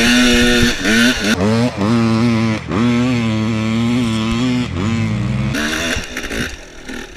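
Dirt bike engine revving up and down in quick swings as the bike is ridden, then dropping away about five and a half seconds in.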